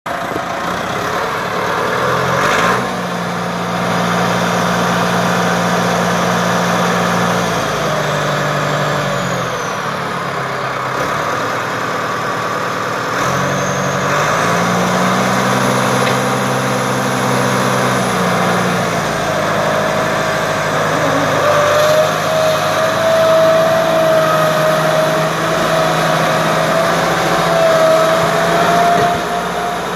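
Farm tractor's diesel engine working across a field, its pitch stepping up and dropping back several times as the throttle changes. In the last third a thin, wavering high squeal rides over the engine.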